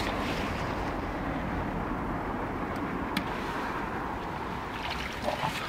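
Wind buffeting the microphone as a steady low rumble, with a couple of faint clicks.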